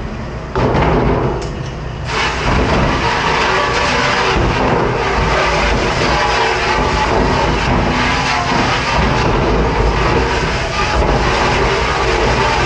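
Commercial pre-rinse spray nozzle blasting water onto a stainless steel hotel pan, a loud, steady rushing spray.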